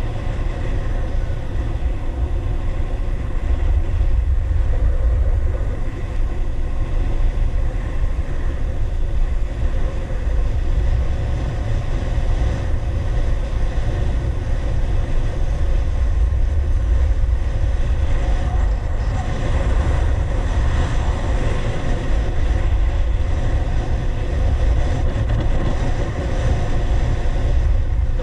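Wind buffeting the microphone of a skier's camera as it moves downhill, a deep rumble that swells and fades, over the steady hiss and scrape of skis gliding on groomed packed snow.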